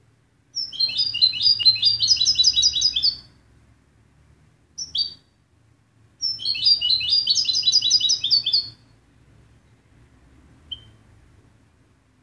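Caged European goldfinch singing: two phrases of rapid, repeated high notes, each about two and a half seconds long, with a short call between them and a faint single note near the end.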